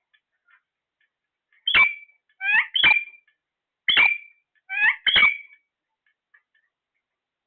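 Parrot giving six short, sharp calls over about four seconds, some in quick pairs, starting about two seconds in.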